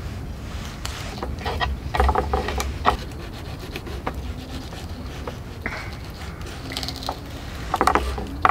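Hands handling a fish and clear plastic on a wooden cutting board: rubbing, rustling and light knocks in irregular bursts, loudest about two seconds in and near the end.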